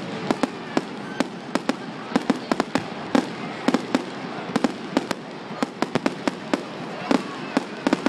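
Fireworks display: a rapid, irregular string of sharp bangs, several a second, over a continuous crackling hiss.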